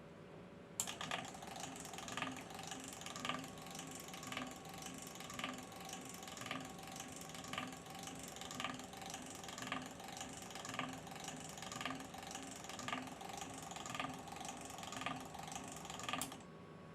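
A small geared motor mechanism, driven from the wood planer's control board on a test bench, switches on with a click. It runs with a rhythmic ratcheting clatter that beats about once a second, then stops with a click near the end.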